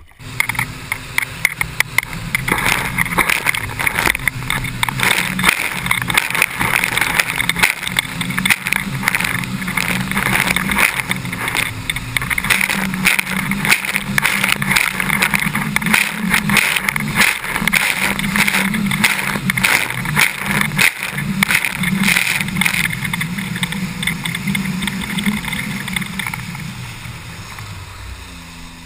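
Mini jet boat engine and jet drive running hard at speed, with the rush of water spray and wind over the hull. It throttles up in the first couple of seconds and eases off near the end.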